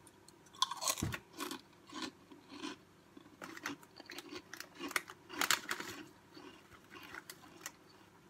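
A person biting and chewing food close to the microphone, in irregular short bursts that are loudest about a second in and again about five and a half seconds in.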